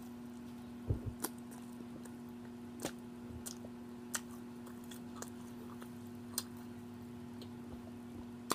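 A person chewing food close to the microphone: scattered sharp wet mouth clicks and lip smacks, about one a second, over a steady low hum.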